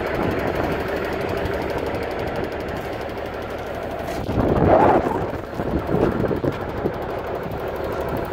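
Diesel engine of a 1991 Freightliner FLD120 semi tractor idling, a rapid, steady, even clatter of firing pulses, with a louder swell about halfway through.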